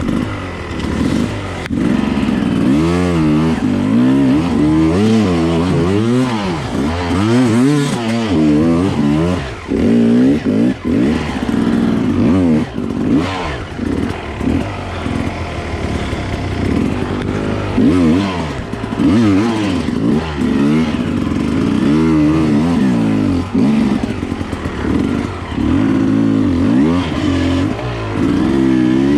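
Enduro dirt bike engine revving up and down over and over as it is ridden through rough trail, its pitch rising and falling in quick swells, with some clatter.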